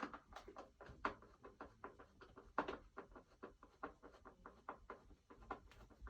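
Hand screwdriver backing long screws out of a Gemmy animated figure's cage: a run of faint, irregular clicks and small scrapes, several a second.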